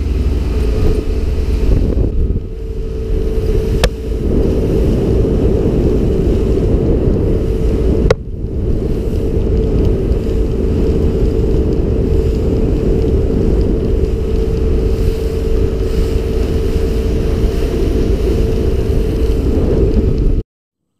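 Bayliner 2655 cruiser under way: a steady engine drone and water rush, with wind buffeting the microphone. Two brief clicks come about 4 and 8 seconds in, and the sound cuts off abruptly just before the end.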